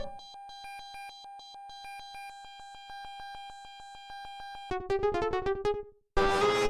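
Synthesized electronic music-like sounds: a steady held beep over a fast ticking of about ten ticks a second, then a quick run of short blips about 4.5 seconds in, a brief gap, and a louder short burst near the end.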